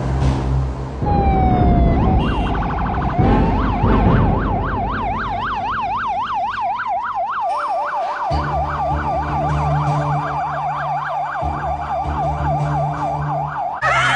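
Police car siren in a fast yelp, its pitch rising and falling about three times a second, starting a few seconds in.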